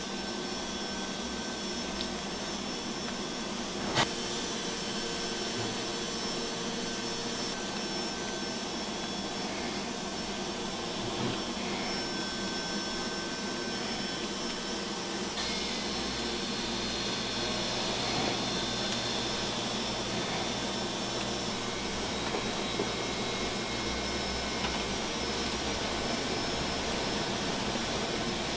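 A steady rushing hum of background machinery, with a single sharp click about four seconds in.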